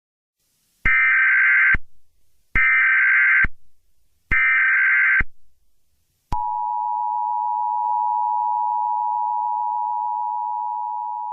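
Emergency Alert System signalling: three identical bursts of SAME header data, a harsh digital warble each just under a second long, then about six seconds in the steady two-tone EAS attention signal begins and holds. Together they mark the start of a new emergency alert.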